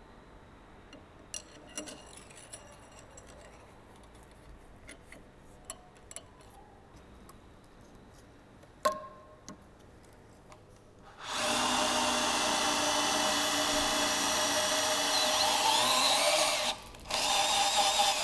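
Light clicks of metal parts being handled, and one sharp ringing metal clink about nine seconds in. Then a cordless drill starts and runs steadily, boring into an aluminium adapter plate. It stops briefly near the end and starts again.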